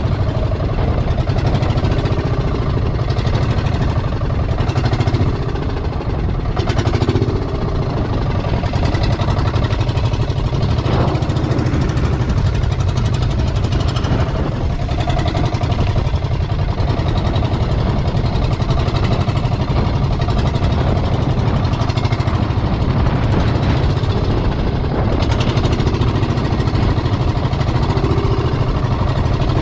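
Outrigger boat's engine running steadily while the boat moves through choppy sea, with wind on the microphone.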